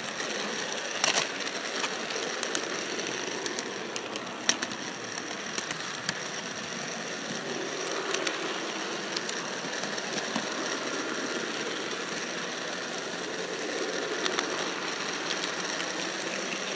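Model train running along layout track: a steady mechanical whir with a thin high whine, broken by sharp clicks as the wheels cross rail joints and turnouts, the loudest about one second and four and a half seconds in.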